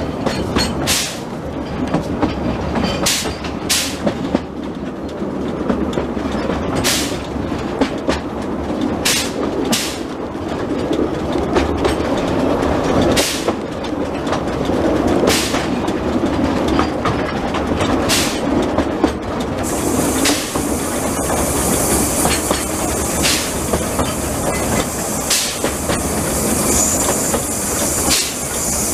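Narrow-gauge train running, heard from an open carriage just behind the small locomotive: a steady running rumble with the wheels clicking over rail joints at irregular intervals. A steady high hiss joins about two-thirds of the way through.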